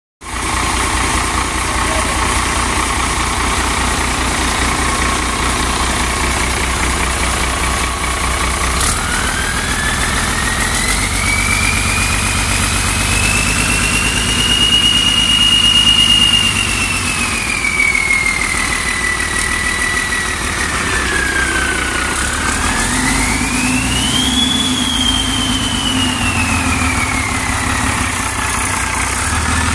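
1992 Ford 7.8-litre 210 hp inline-six diesel engine running: idling steadily at first, then from about a third of the way in revved up and held, eased back, and revved up again. A high whine rises and falls with the revs.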